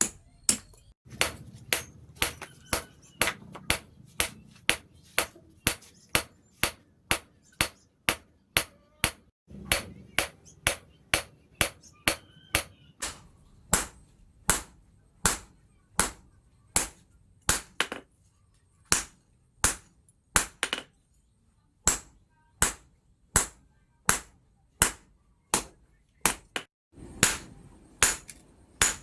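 Hand hammer striking hot steel on an anvil during knife forging: a steady run of sharp metallic blows, about one and a half a second.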